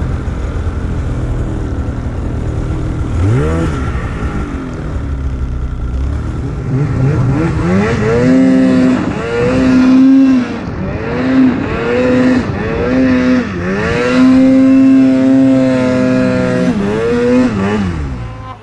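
Snowmobile engine running at a steady throttle, then revved in repeated bursts from about halfway, its pitch climbing and dropping with each burst under load in deep snow. The sound cuts off suddenly at the end.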